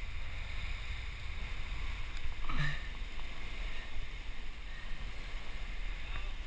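Steady low rumble of wind on a head-mounted action camera's microphone, with the sea surging below the cliff. There is one short louder sound about two and a half seconds in.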